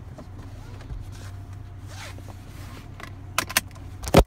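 Phone handling noise: rubbing and scraping against the microphone, with sharp knocks about three and a half seconds in and the loudest one just before the end. Under it runs a steady low hum inside the car.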